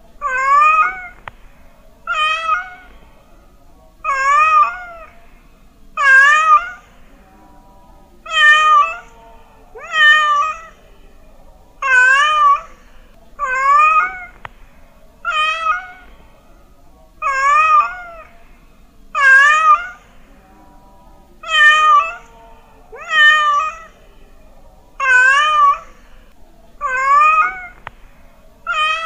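A domestic cat meowing over and over, loud, about one short meow every one and a half to two seconds, each with a wavering pitch that dips and rises.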